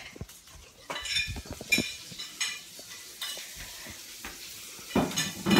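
A small dog playing with a plush toy on a hard floor: scuffling and clicking, with a few short high squeaks in the first half and a louder bump near the end.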